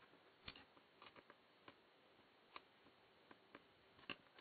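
Faint, irregular clicks, about ten of them at uneven spacing, over a low steady hiss.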